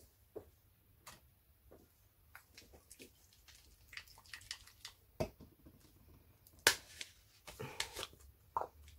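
Scattered clicks and knocks of small paint jars and craft tools being picked up and set down on a tabletop, the sharpest about five and about six and a half seconds in.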